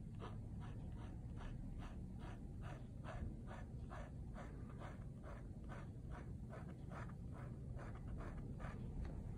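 Pen nib scratching across paper in quick, regular hatching strokes, about three a second.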